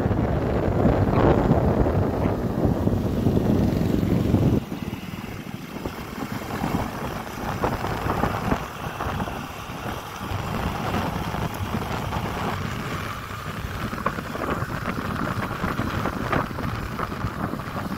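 Wind rushing over the microphone with the road noise of a moving vehicle beneath it. The rushing drops suddenly and stays lower from about four and a half seconds in.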